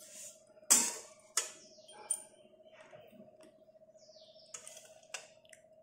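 Flat metal spatula scraping and knocking against a steel kadai while stirring flattened rice (chuda) being dry-roasted. There are about five sharp scrapes and taps, the loudest about a second in, over a faint steady hum.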